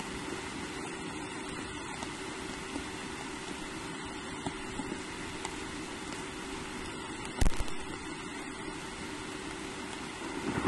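Steady hiss of rain picked up by a nest camera's microphone, with a faint steady hum under it. One sharp knock sounds about seven and a half seconds in.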